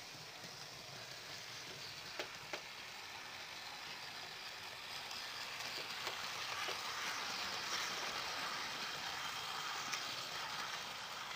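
Model BR Standard Class 5 steam locomotive and coaches running on a model railway track: a steady hissing rumble of wheels and motor that grows louder as the train comes close, with a few sharp clicks over the rail joints.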